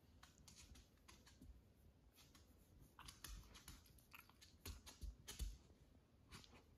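Near silence: faint rustling and scattered soft clicks as a hand pets and scratches a small curly-coated dog's fur, with a few soft thumps between about three and five and a half seconds in.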